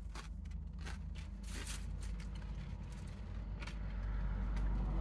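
Steady low rumble inside a car's cabin, with a few faint, brief clicks and rustles from eating sandwiches.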